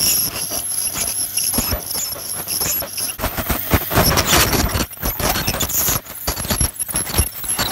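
Ultrasonic dental scaler giving a high, steady whine, with irregular scraping clicks as its tip chips tartar off a dog's teeth.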